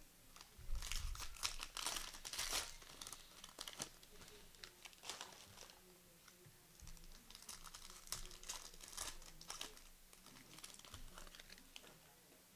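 Plastic wrappers of basketball trading card packs being torn open and crinkled by hand, in two bouts of crackling, the first starting about a second in and the second around the middle.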